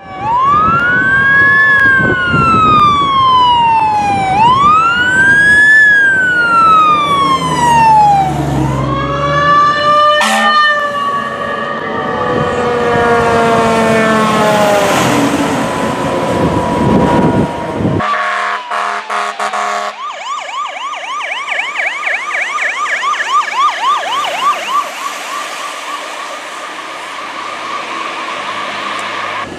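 E-One fire apparatus passing with emergency sirens: slow rising-and-falling wails, then steady horn blasts around the middle. After a cut, a different unit's siren warbles in a rapid yelp.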